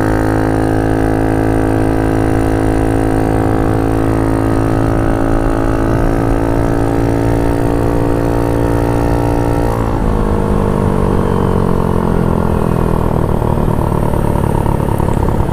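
GY6 scooter engine with an open exhaust pulling under acceleration while riding, its note climbing slowly. About ten seconds in, the note drops suddenly to a lower pitch and eases down.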